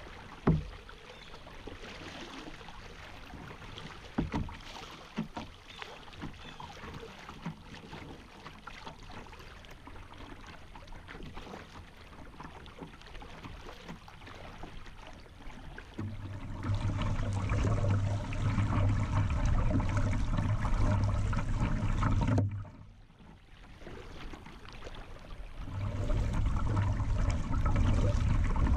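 River current lapping and gurgling against a kayak's hull as it drifts downstream, with a couple of sharp knocks in the first few seconds. About sixteen seconds in, the water sound turns louder and rougher. It drops away briefly about twenty-three seconds in, then comes back.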